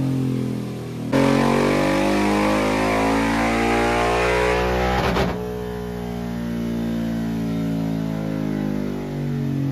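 Royal Enfield Interceptor 650's parallel-twin engine, with a catless header and Scorpion exhaust, making a full-throttle dyno power run. About a second in the throttle snaps open and the engine climbs steadily up the rev range for about four seconds; then the throttle shuts abruptly and it winds down with falling pitch.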